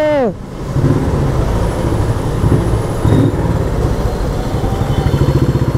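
Motorcycle engine roaring inside a road tunnel: a loud, deep exhaust note of fast, even firing pulses.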